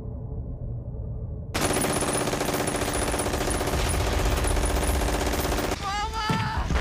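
War-film battle soundtrack: a dull, muffled rumble, then rapid machine-gun fire breaking in suddenly and clearly about a second and a half in. Near the end a wounded man screams in pain.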